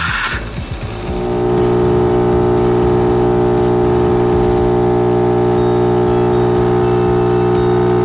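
Philips 5400 LatteGo espresso machine: a hiss from the milk carafe's frothing cuts off right at the start. From about a second in, the machine's pump settles into a steady, even hum as it pushes water through the coffee grounds and espresso pours into the cup for a cappuccino.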